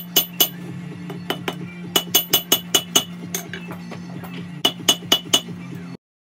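Hand hammer striking hot Damascus steel on an anvil while forging a paring knife, in short runs of sharp ringing blows: a few at the start, a quick run of about eight around two seconds in, and four or five near the end. A steady hum from the running gas forge lies underneath, and the sound cuts off suddenly about a second before the end.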